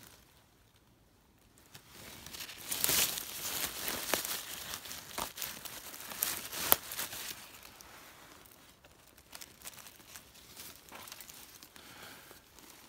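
Dry leaves, pine needles and twigs on the forest floor rustling and crackling as a porcini mushroom is picked by hand, starting about two seconds in, with a couple of sharp snaps. After that comes fainter rustling of movement through the leaf litter.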